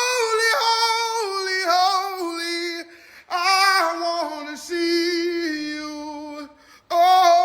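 Only singing: one high voice sings a worship song unaccompanied, with vibrato, in three phrases broken by short pauses about three seconds in and near the end.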